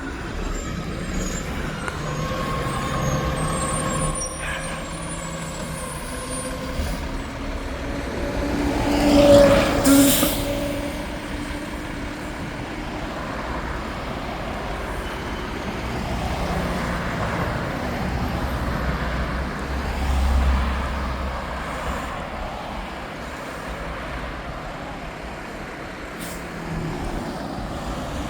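Heavy truck engine running in traffic, with a loud pass about ten seconds in that rises and falls in pitch, topped by a sharp air-brake hiss. A second deep engine swell comes about twenty seconds in.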